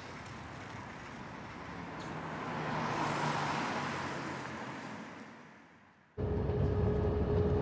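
A vehicle passing on a wet street: a swell of tyre hiss that builds to a peak about three seconds in, then fades away. It cuts off abruptly, about six seconds in, to the steady engine hum and low rumble heard inside a moving bus, with a faint held tone over it.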